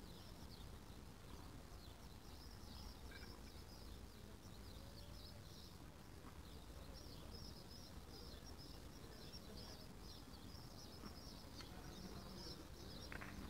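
Faint, steady chirping of small birds over a low background hum.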